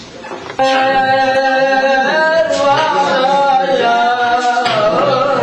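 One voice singing loudly, coming in suddenly about half a second in and holding long notes that waver and bend in pitch.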